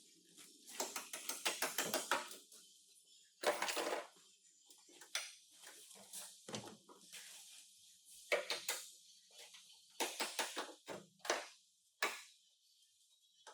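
Body-shop hand-tool work on car metal: a quick run of clicks about a second in, then scattered knocks and short scraping bursts.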